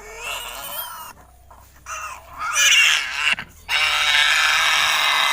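Piglet squealing while held for an injection: a short squeal about two and a half seconds in, then a loud, unbroken scream from nearly four seconds in.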